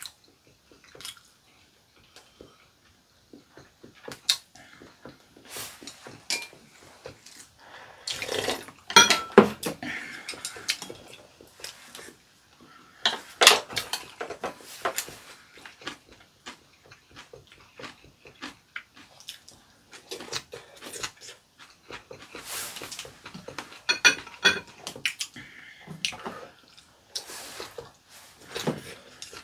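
Close-up sounds of two people eating: wet chewing and slurping, with irregular clicks of metal chopsticks against ceramic bowls and plates. The loudest bursts of eating noise come about a third of the way in and again near the middle.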